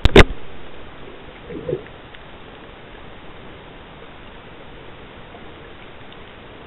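Steady hiss heard through an underwater camera, with one loud sharp click a fraction of a second in and a softer low thump about a second and a half in.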